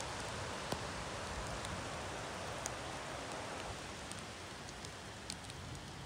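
Steady rain: an even hiss with scattered sharp ticks of drops, easing slightly a little over halfway through.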